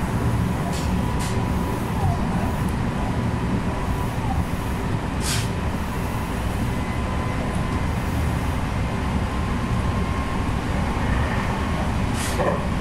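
Meitetsu electric train running along the line, heard from behind the driver's cab: a steady rumble of wheels on rail with a faint steady whine and a few sharp clicks, one about five seconds in and one near the end.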